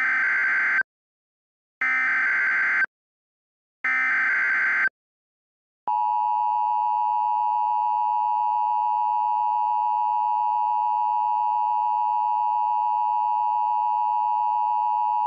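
Emergency Alert System tones: three bursts of SAME header data, each about a second long and two seconds apart. About six seconds in comes the steady two-tone EAS attention signal (853 and 960 Hz), which holds unbroken to the end. Together they announce an emergency alert message.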